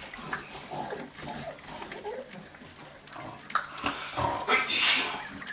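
Staffordshire bull terrier puppies making short, scattered whines and squeaks, louder about four to five seconds in.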